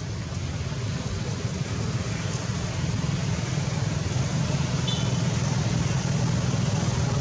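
Steady low rumbling background noise, with a brief faint high chirp about five seconds in.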